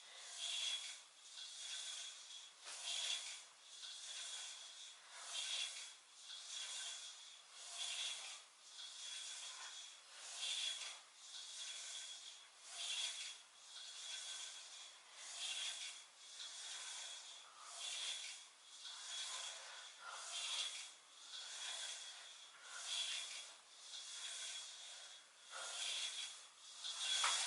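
Rhythmic swishing and rubbing from a person doing weighted crunches, a faint swish about every second and a quarter, the stronger ones about every two and a half seconds.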